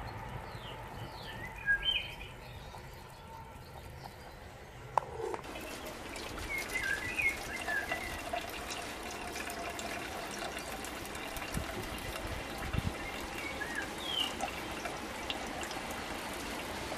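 Water boiling with potatoes in a mess tin: a steady hiss with a patter of small pops that starts about five seconds in. Small birds chirp on and off over it.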